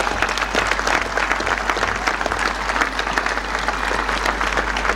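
Large crowd applauding, many hands clapping in a dense, steady patter.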